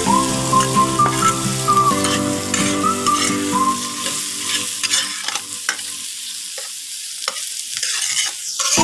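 Chopped aromatics and sliced ginger sizzling in hot oil in an aluminium pot, stirred with a metal spoon that scrapes the pot bottom in irregular strokes. Steady background music drops out about halfway, leaving the sizzle and scraping.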